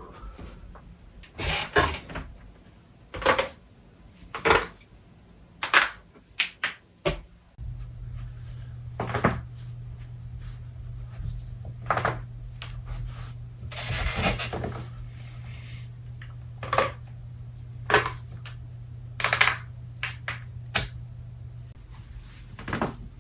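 Loud human joint cracks: back, neck and knuckle joints popping, about seventeen sharp cracks, some single and some in quick clusters of two or three. A steady low hum starts about a third of the way in and runs under them.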